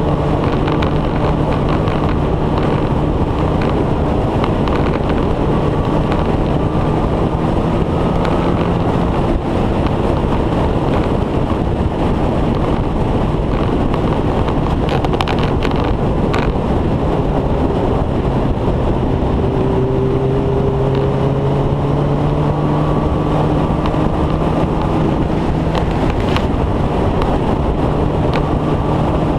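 Motorcycle engine running at cruising speed, heard under heavy wind noise on the microphone. The engine note holds steady, then sags and climbs back slowly around the middle.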